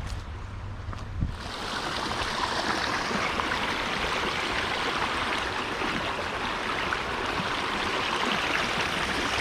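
Creek water rushing over a small waterfall, a steady splashing hiss that comes in suddenly about a second in, just after a short knock.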